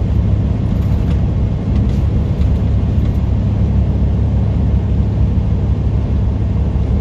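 Steady low rumble of a semi-truck's engine and road noise heard inside the cab while cruising on the highway, with a few faint ticks about one to two seconds in.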